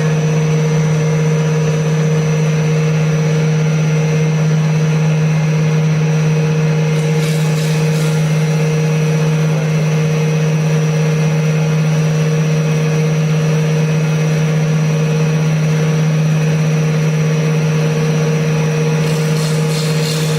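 CNC wood lathe running with the workpiece spinning, giving a loud, steady motor hum that holds one constant pitch. Brief faint scratchy ticks come about seven seconds in and again near the end.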